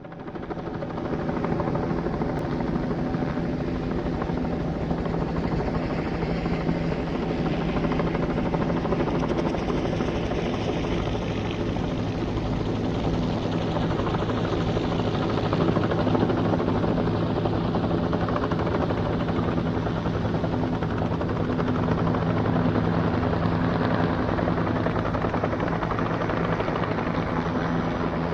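Police helicopter's rotor and engine running steadily, fading in over the first second or so and then holding at an even level.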